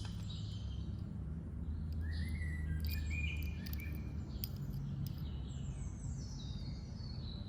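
Birds chirping in the background, short repeated chirps through the middle, over a low steady hum.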